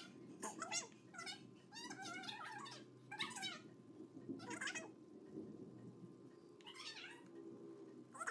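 An animal's short, repeated cries, about eight of them, bunched together in the first few seconds and then more spaced out, over a low steady background hum.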